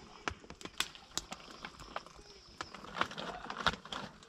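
Wood fire crackling in a stove: irregular sharp pops and ticks, a few each second.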